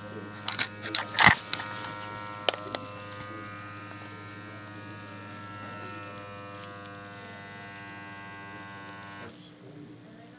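Automatic blood pressure monitor's pump inflating the arm cuff: a steady electric buzz that stops abruptly about nine seconds in. A few sharp knocks and rustles come in the first three seconds.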